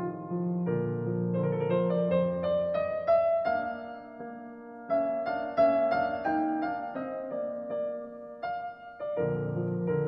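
Background piano music: a melody of single sustained notes, climbing in short stepwise runs in places.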